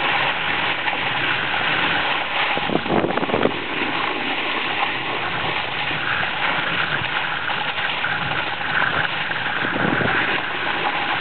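Snowboard sliding and scraping over packed, tracked snow in a steady rushing hiss, with a couple of louder scrapes about three seconds in and near the end.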